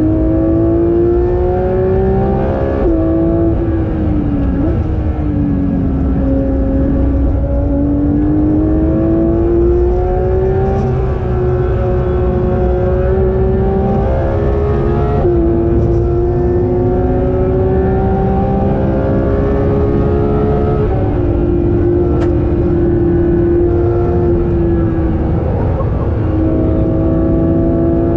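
Porsche 4.0-litre naturally aspirated flat-six heard from inside the cabin at speed on track. Its pitch climbs steadily under acceleration and drops abruptly at each gear change, several times, over a steady low road and tyre rumble.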